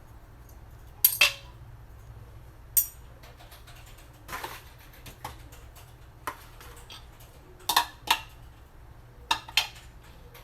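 Spoon clinking and scraping against dishes: scattered sharp clinks, in pairs about a second in and near the end, with one longer scrape midway, over a steady low hum.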